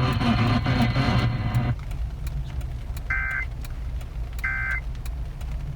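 Emergency Alert System end-of-message signal: short bursts of two-tone digital data warble, about a third of a second each and about 1.4 s apart. Two fall in full, and a third starts at the very end, marking the close of the warning broadcast. Beneath them runs a low steady rumble, and a denser broadcast noise cuts off about two seconds in.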